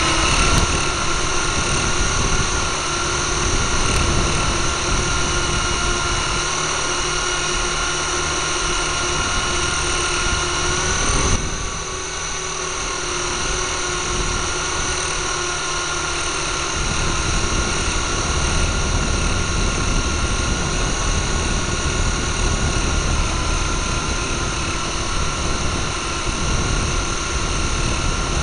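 Electric motors and tandem rotors of a Syma S022 Chinook RC helicopter in flight, heard from the recorder it carries: a steady high whine over gusty wind rumble on the microphone. The whine drops slightly in pitch and level about eleven seconds in.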